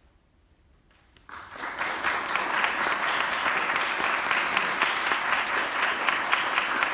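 Near silence for about a second, then an audience breaks into applause that swells quickly and holds steady.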